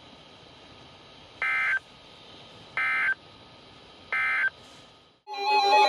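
Emergency Alert System end-of-message signal: three short, buzzy digital data bursts about a second and a half apart, marking the end of the alert broadcast. About five seconds in, a loud, steady electronic sound with several pitches begins.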